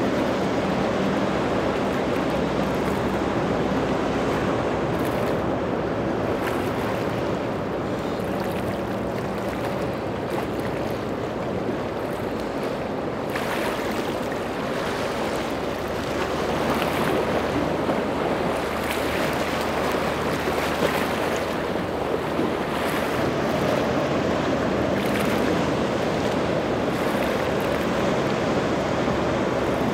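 Rough ocean waves and churning water, with boat engines running steadily underneath.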